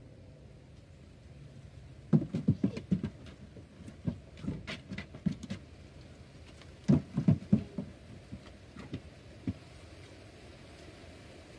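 Quick patter of footsteps with light thumps, in two clusters about two and seven seconds in, with scattered single taps between.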